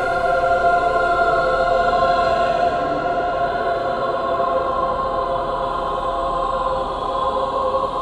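Choir singing long, held notes in a slow, haunting chord with no words heard, the voices sustained almost unchanging; the chord shifts slightly about seven seconds in.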